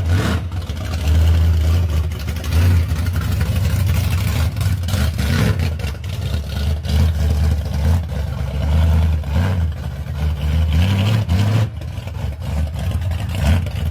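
Engine of a straight-axle gasser drag car running with a deep, uneven idle and blipped a few times, the pitch rising briefly as it is revved about three-quarters of the way through.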